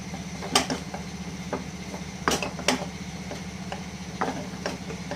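Spoon knocking and scraping against a pan while stirring a thick milk-powder dough, irregular clicks with the sharpest about half a second in and two more around two and a half seconds in, over a steady low hum.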